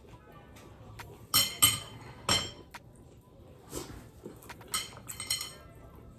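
An eating utensil clinking against a dish: three loud, ringing clinks about one to two and a half seconds in, then several softer ones.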